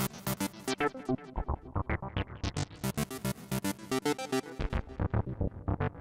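Virtual ARP Odyssey synthesizer (the Prodyssey model on the DinoPark DSP box) playing a fast run of short, bright, plucky notes, about five or six a second, over low bass notes.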